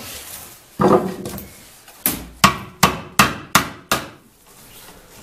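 A hand tool rapping on a wicker willow basket being woven: six sharp knocks in quick succession, a little over two a second, after a single duller thud about a second in.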